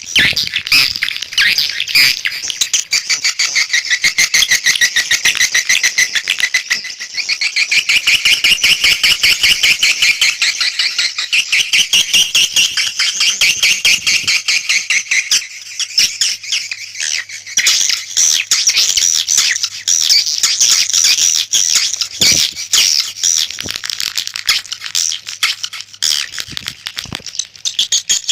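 Recorded swiftlet calls, the lure track played to attract edible-nest swiftlets to a bird house: a dense, fast rattling twitter of many rapid chirps each second.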